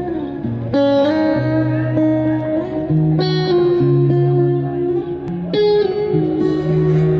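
Acoustic guitar song intro played live through a stage PA: chords struck and left to ring over held low notes, a new chord coming about every two and a half seconds.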